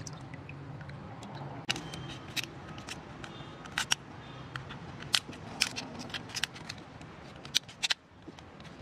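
Scissors snipping and crunching through a mud crab's shell, a run of sharp irregular clicks over a low steady hum.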